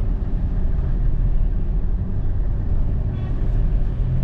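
Steady low rumble of a road vehicle driving through city streets, engine and road noise with no clear individual events.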